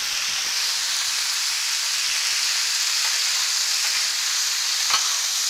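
Wet sauerkraut sizzling on a hot, oiled Blackstone flat-top griddle: a steady, high frying hiss. A metal spatula clicks once against the griddle plate near the end.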